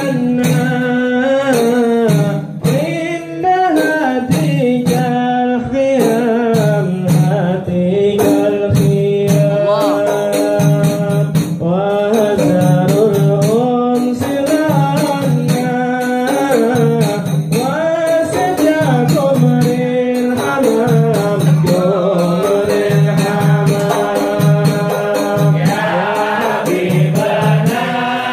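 A group of men singing an Arabic qasidah (devotional song) together, over hand percussion beating a steady rhythm.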